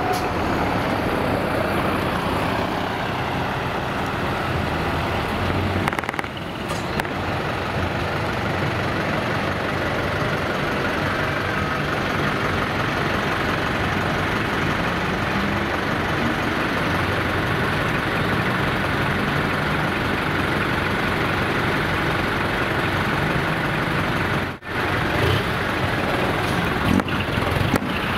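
Heavy diesel trucks running and driving off, a steady mix of engine and exhaust noise.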